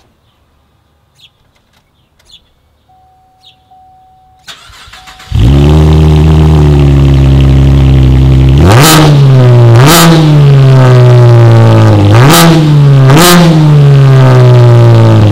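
A Chevrolet Camaro's V6 with an MBRP XP Series 3-inch cat-back exhaust starts about five seconds in, flares and settles to a steady idle. It is then revved in four quick blips, two pairs, each a sharp rise and fall in pitch, and settles back to idle.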